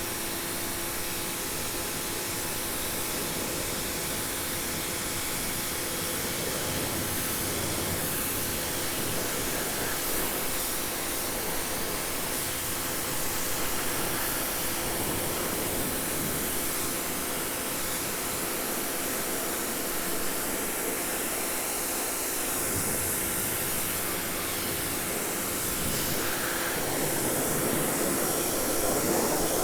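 Prymax 3000 PSI electric pressure washer running, its motor and pump giving a steady hum under the hiss of the water jet spraying onto composite decking.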